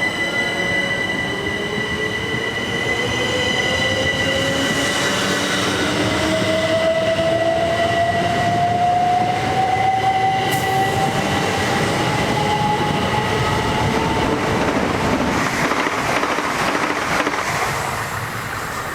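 Class 375 Electrostar electric multiple unit on the move, with a steady high electric whine and a traction-motor whine rising steadily in pitch as the train gathers speed. Near the end the whine gives way to rushing wheel-and-rail noise, which then fades.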